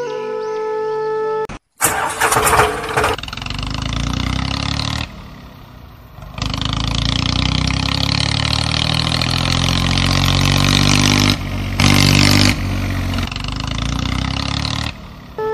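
Flute music, then a diesel tractor engine starting with a loud burst about two seconds in and running on, its pitch slowly rising and falling and easing off briefly about five seconds in.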